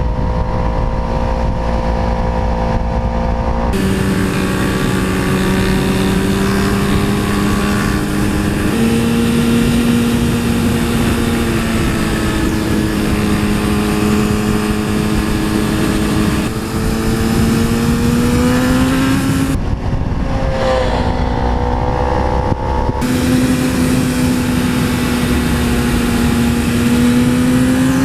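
Sport motorcycle engine running under way, heard from an on-bike camera with wind rush. The engine note rises and falls gently, and its pitch steps a few times.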